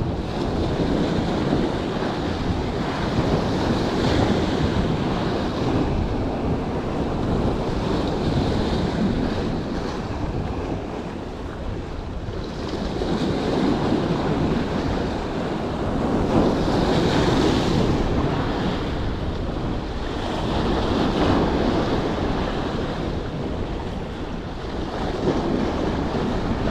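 Sea waves breaking and washing over shoreline rocks, swelling and easing every few seconds, with wind buffeting the microphone.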